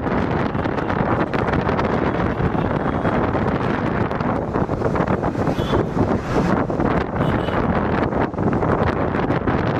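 A car driving along a road, heard from inside: steady engine and road noise with wind buffeting the microphone.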